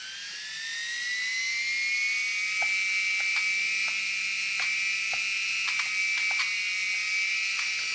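Small electric motor and plastic gears of the Air Hogs Moto Frenzy RC motorbike whining as they spin up. The pitch rises over the first couple of seconds, then holds steady, with scattered light clicks. The toy is running again after reassembly.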